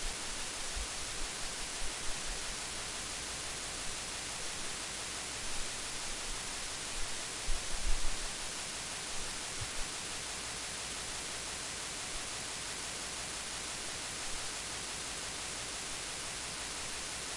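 Steady hiss of recording noise, with a few dull low thumps, the loudest about seven to eight seconds in.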